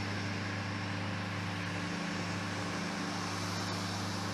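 Steady engine drone with a constant low hum.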